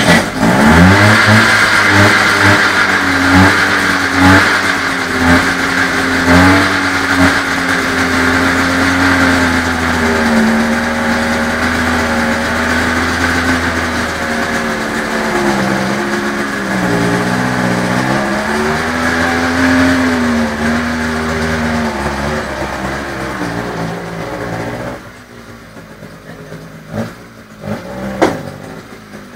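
Goliath GD 750 three-wheeler's two-stroke twin engine catching right at the start and blipped several times in the first few seconds. It then runs steadily, its pitch dipping a few times, and is switched off about 25 seconds in, followed by a couple of clicks.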